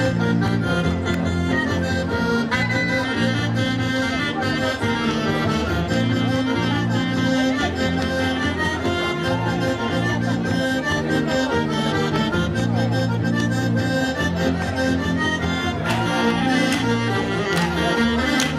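Live traditional Breton dance music, a continuous melody with held notes, played by a small band that includes a saxophone.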